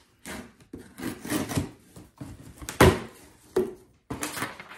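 A knife slitting packing tape on a cardboard shipping box and the cardboard flaps being pulled open, with scraping and rustling and a sharp knock about three seconds in.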